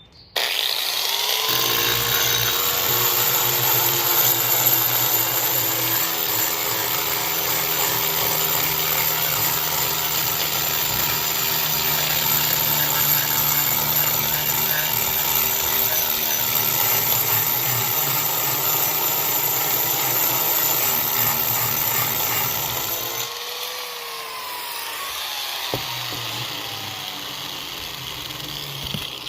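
A 4.5-inch angle grinder with a diamond-embedded cup wheel starts about half a second in and grinds concrete, a loud steady high-pitched whine over scraping. About 23 seconds in it drops and runs on more quietly.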